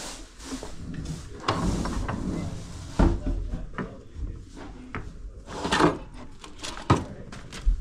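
Small household objects being handled and set down: rustling with several sharp knocks and clunks spread through, the loudest about three seconds in and again a little before the end.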